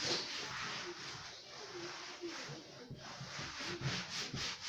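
A cloth rubbing back and forth across a tabletop in quick repeated strokes, wiping off stray paint.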